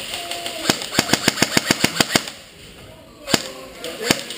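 Airsoft guns firing: a quick run of about a dozen sharp shots over a second and a half, then two single shots near the end.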